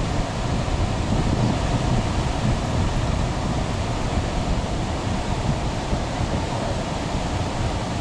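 Waterfall rushing steadily, an even roar of falling water with no breaks.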